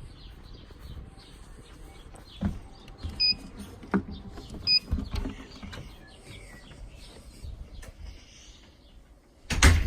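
Knocks and handling noise, with two short electronic beeps about a second and a half apart, typical of button presses on a fire alarm control panel's keypad. A loud thump comes near the end.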